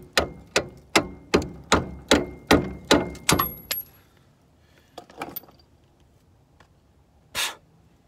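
Hammer blows on a steel front-suspension part, driving a bolt through the steering knuckle: about ten hard, evenly spaced strikes, some two or three a second, then two lighter knocks, and a short rasping noise near the end.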